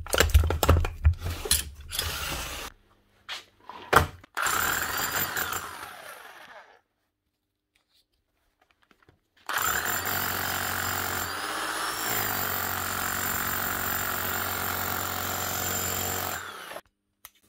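Bosch GBH 5-38 D SDS-max rotary hammer test-run: after some irregular knocks and clatter, its motor runs and hammers for about two seconds and winds down, then runs steadily for about seven more seconds before cutting off. The hammer action is working well.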